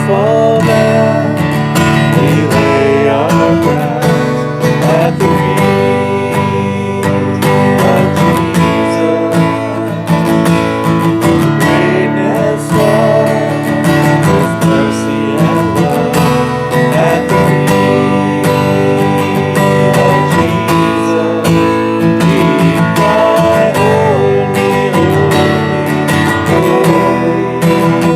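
Acoustic guitar strumming, steady and unbroken, as instrumental music.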